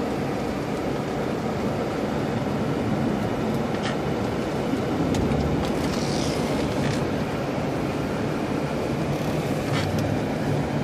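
Steady road and engine noise inside the cabin of a moving car, with a few faint clicks.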